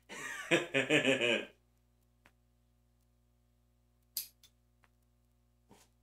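A man's voice for the first second and a half. Then a metal fingernail clipper snips a fingernail: a sharp click about four seconds in with a smaller one right after it, and another click near the end.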